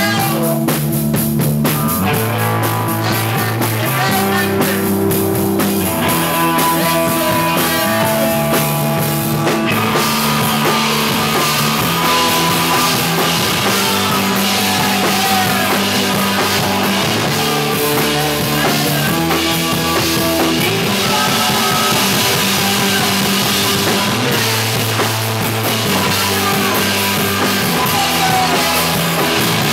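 Rock band playing live: guitar, bass and drum kit, with the cymbals and upper sound filling out from about ten seconds in.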